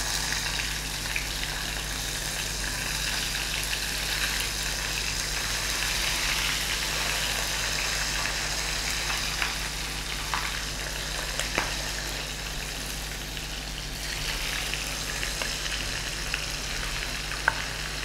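Cubes of marinated eggplant deep-frying in hot oil in a pan: a steady sizzle with a few sharp pops and crackles.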